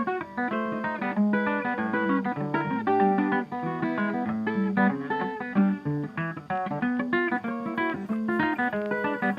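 Background music: a plucked guitar playing a busy run of notes.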